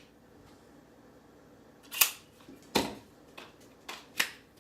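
Sharp clicks and snaps from handling a new Milwaukee M12 cordless crown stapler: three loud clicks about two seconds in, near three seconds and near the end, with a few lighter clicks between.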